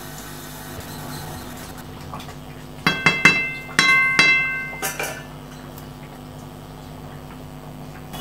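A metal stirring utensil clanking against a large aluminium kadai of carrots simmering in milk, the pan ringing with a clang of several clear tones. The clangs come as a quick cluster about three seconds in, another around four seconds, and a last knock near five seconds.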